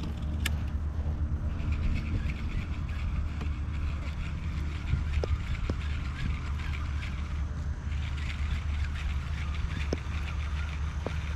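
Baitcasting reel being cranked, its gears whirring with fine rapid ticks as a lipless crankbait is retrieved; the reeling stops briefly about seven and a half seconds in, then starts again. A steady low rumble runs underneath.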